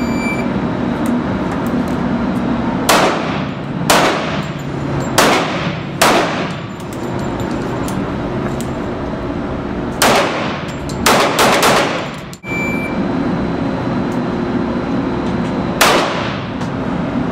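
Pistol shots in an indoor range, each a sharp report with an echoing tail: about nine shots spread unevenly, with three in quick succession a little past the middle.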